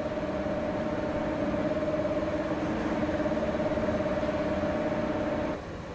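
Electric fans blowing a steady stream of air: a steady hum with two held tones over the rush of air, cutting off about five and a half seconds in.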